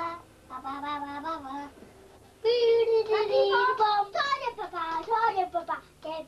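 A young child singing without clear words in a high voice, holding wavering notes: a short phrase, a brief pause, then louder held notes from about two and a half seconds in.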